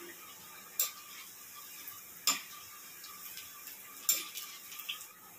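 Colocasia-leaf roll slices deep-frying in mustard oil in an aluminium kadhai: a steady, faint sizzle, with three sharp clicks of a metal spoon against the pan, about a second in, a little past two seconds and about four seconds in.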